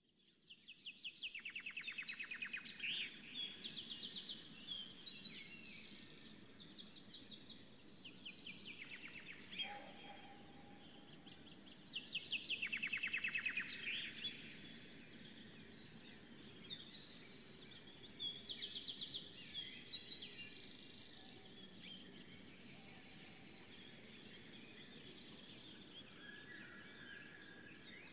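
Several songbirds singing, with overlapping fast trills and chirps, over a faint steady background hiss.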